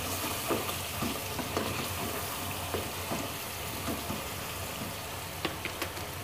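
Chicken pieces frying in spice paste in an aluminium pressure cooker, a steady sizzle. They are stirred with a wooden spoon, which makes scattered scrapes and knocks against the pot.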